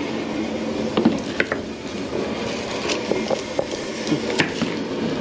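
Scattered sharp knocks of a knife chopping on a wooden cutting board, over a steady rushing hiss from the lit propane burner under the boil pot.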